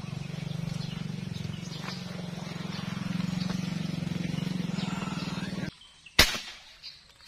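An air rifle fires a single sharp shot about six seconds in, aimed at fish in a stream. Before it, a steady low drone with a fine rapid pulse runs and then cuts off abruptly.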